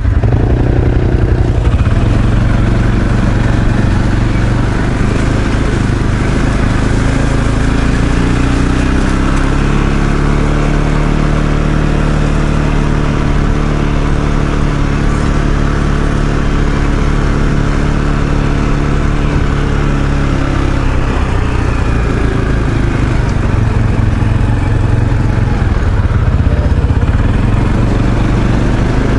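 ATV engine running under way while riding, a steady drone whose pitch rises and falls a little with the throttle.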